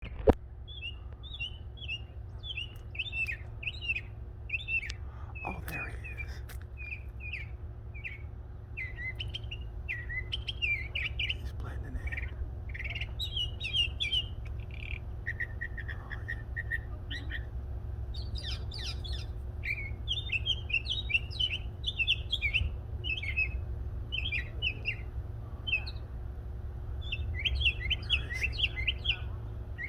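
Two songbirds singing a long, near-continuous run of quick, varied chirping phrases, over a steady low rumble.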